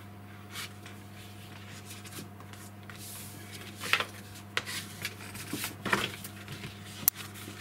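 Sheet of design paper rustling and rubbing on a cutting mat as it is handled and folded by hand, in short irregular scrapes, with a sharp click near the end. A steady low hum runs underneath.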